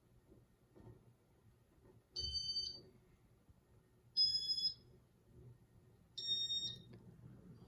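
Three short electronic beeps from a Casablanca Inteli-touch ceiling fan's control, each about half a second long and about two seconds apart, each at a slightly different pitch. They come as the fan steps through its demo mode, over a faint low hum.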